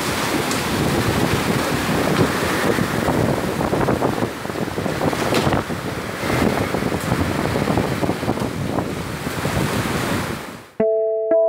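Heavy rain and strong gusting wind blasting against the microphone, a dense rushing noise that rises and falls with the gusts and fades out near the end. Just before the end, a short electronic piano jingle begins.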